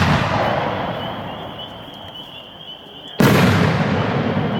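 A 3-inch aerial firework shell: a sharp boom at the start that dies away, then a second, louder boom about three seconds later with a long echoing tail.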